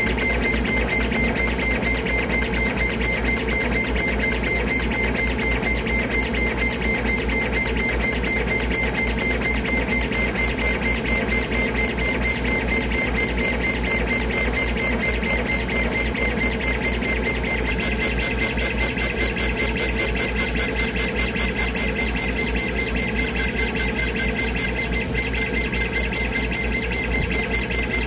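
CO2 laser engraver raster-engraving: the gantry's stepper motors drive the head rapidly back and forth, giving a fast, even mechanical pulsing with a steady high whine. A second, higher whine joins about two thirds of the way through.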